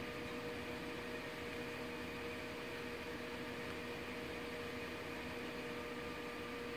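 Steady room hum: an even hiss under a constant electrical tone, unchanging throughout.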